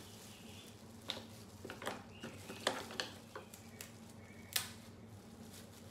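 Snow crab legs being cracked open by hand and cut with crab shears: a handful of sharp, separate cracks and snips of shell.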